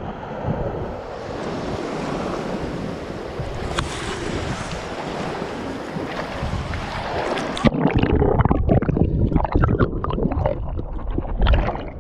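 Sea water washing and lapping at a pebble shore, with wind on the microphone. A little over halfway through the sound turns suddenly muffled and water sloshes and splashes irregularly right against the microphone.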